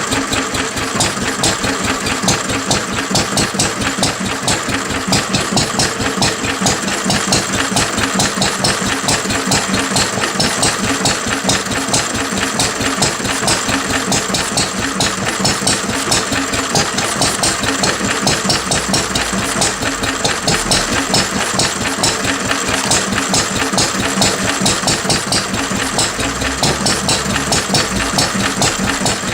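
1937 Lister D 2 hp single-cylinder stationary engine, freshly rebuilt, running steadily with a rapid, even beat.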